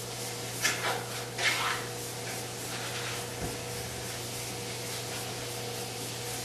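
Pieces of chicken sizzling in melted butter in a skillet, with a spoon scraping through them twice in the first two seconds as they are stirred.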